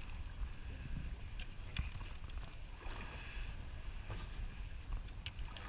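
Wind rumble on the microphone and sea noise around a boat, with a few light clicks and a faint whir as a conventional saltwater fishing reel is cranked by hand.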